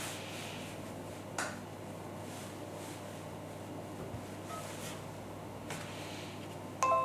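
Faint clicks of a USB flash drive being handled at a GPD Pocket's USB port, then near the end a short Windows device chime: several bright steady tones sounding together.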